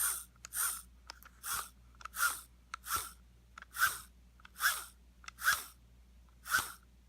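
Robot vacuum drive-wheel gearbox, freshly regreased and reassembled, being turned by hand: nine short bursts of gear noise in a row, a little under a second apart. The wheel now freewheels where before the repair it was stuck.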